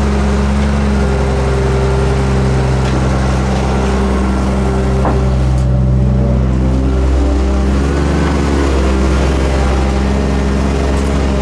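Diesel engine of a Hyundai 2900LC-3 crawler excavator running steadily under digging load, its drone wavering in pitch about seven to nine seconds in.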